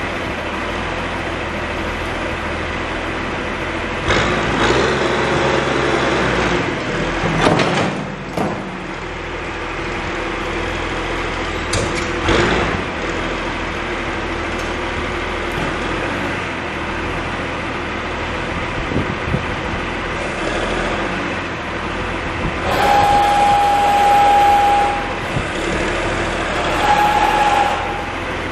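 John Deere 710D backhoe's diesel engine running steadily, swelling louder a few times. Near the end a steady high tone sounds twice, first for about two seconds, then briefly.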